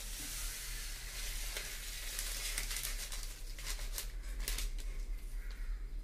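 Descaling powder poured from a torn paper sachet into a washing machine's plastic detergent tray: a steady fine hiss of running grains, with a few crinkles and taps of the packet around the middle and near the end.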